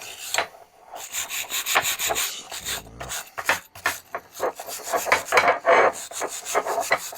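Wire brush scrubbed back and forth by hand over the screw threads of an old bench vise, scraping off rust and grime in quick, uneven strokes.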